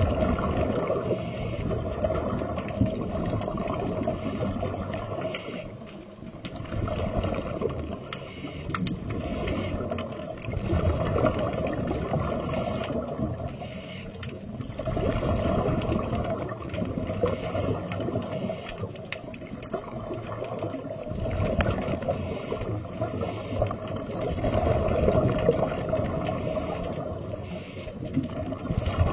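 Sea water sloshing and gurgling, swelling and easing every few seconds.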